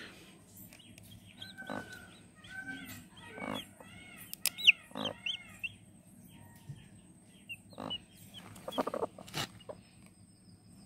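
Broody hen on her nest giving a run of short calls for a few seconds, then a few soft rustles and faint calls near the end.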